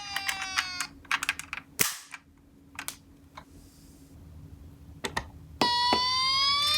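A toy ambulance's electronic siren wails and cuts off about a second in. Then come a scatter of sharp clicks and knocks from the toy cars, the loudest about two seconds in. Near the end a siren starts again, rising in pitch.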